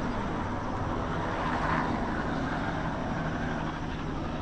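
Helicopter flying nearby, a steady droning rush that swells a little about halfway through.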